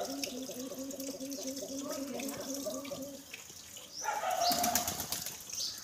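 A pigeon cooing in a low, evenly pulsing run that stops about three seconds in, over water running from a tap. A few short high chirps come through near the middle and end.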